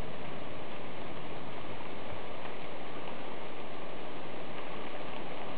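Steady rain falling during a thunderstorm, an even hiss with no change in level.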